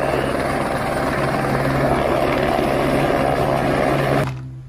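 Light helicopter hovering: steady rotor and engine noise with a constant low hum, cutting off suddenly about four seconds in.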